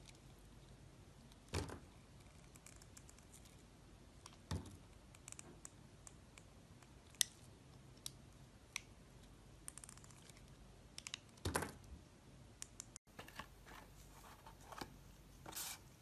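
Snap-off utility knife blade cutting into a bar of soap: faint, crisp cuts and clicks a second or a few apart, coming more closely together near the end.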